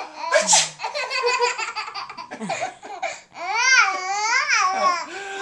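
A young child laughing hard. A short breathy burst near the start is followed by quick pulses of laughter, then a long high-pitched squealing laugh that rises and falls in the second half.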